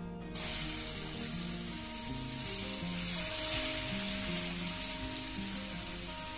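Crushed garlic frying in hot coconut oil in a non-stick pan: a steady sizzle that starts suddenly a moment in, as the garlic hits the oil.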